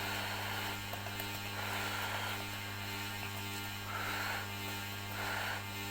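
Steady electrical mains hum, with soft short hissy sounds coming every second or two over it.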